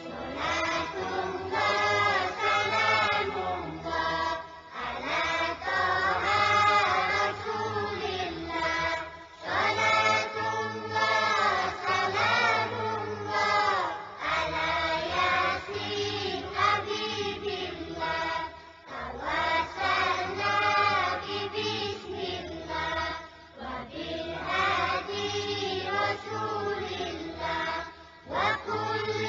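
Background music: a group of voices singing a chant-like song in phrases a few seconds long over a steady low backing.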